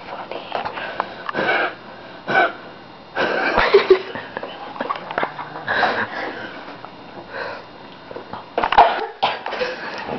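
A person coughing in about half a dozen bursts at uneven intervals, the longest and loudest about four seconds in and another run near the end, while trying not to cough.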